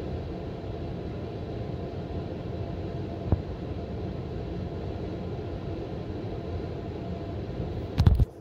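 Hotel room air conditioner running steadily with a faint hum, heard from right on top of the unit. A single click about three seconds in and a loud knock near the end.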